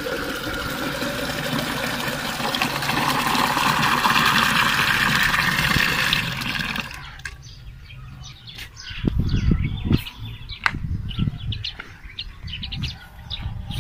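Tap water pouring into a metal pot and filling it, a steady splashing rush that cuts off about seven seconds in as the tap is closed. After that come uneven low rumbling and scattered clicks as the pot is handled.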